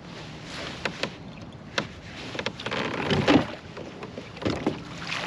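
Handling noise on a fishing kayak while a hooked bass is fought on the line: several sharp knocks and clicks, with a louder stretch of noise a little past three seconds in.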